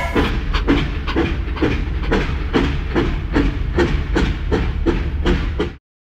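Steam-train chugging, evenly paced at about three chuffs a second over a steady low rumble. It cuts off suddenly near the end.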